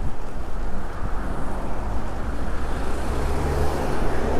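City road traffic heard from a moving bicycle, with wind rushing over the microphone. A low, steady engine hum sets in about three seconds in.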